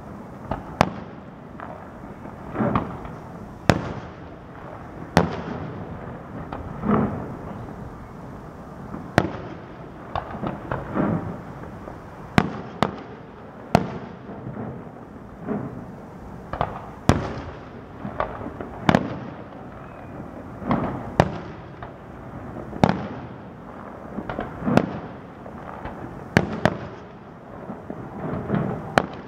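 Aerial firework shells bursting in a steady run: a sharp crack every second or two, mixed with duller, longer booms.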